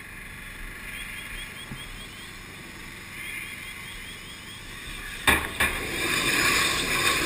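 Propane tank training fire burning with a steady hiss. About five seconds in there are two sharp bangs, and the flames flare up into a much louder, steady roar.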